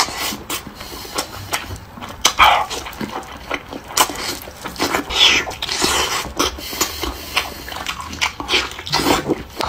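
Close-up eating sounds: wet chewing, frequent lip smacks and clicks, and a few short sucking slurps as braised bullfrog meat is eaten by hand.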